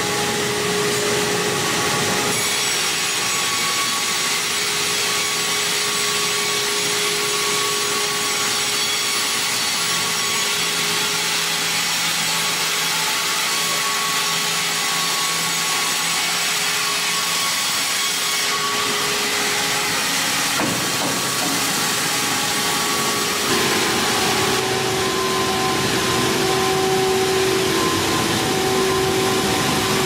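Wravor WRC 1000 horizontal band sawmill running, its band blade cutting through a squared log, a loud steady sawing noise with steady machine tones over it. The tones change pitch about 23 seconds in.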